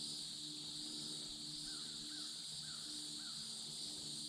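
Steady drone of insects with a low hum underneath, and a bird calling four short times in a row, about half a second apart, in the middle.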